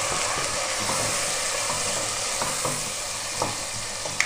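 Onions, tomatoes and spices sizzling in hot oil in a nonstick pot as they are stirred, frying into the onion-tomato masala base for dal. Several light knocks of the stirring spoon against the pot come in the second half, and the sizzle eases off slightly.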